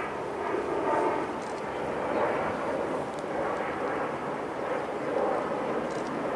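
Distant freight train running across a railway bridge, heard as a steady, wavering noise with no clear engine note.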